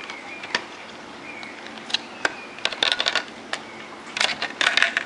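Scattered sharp clicks, then two clusters of short rustling scrapes about halfway through and near the end, like small objects or packaging being handled.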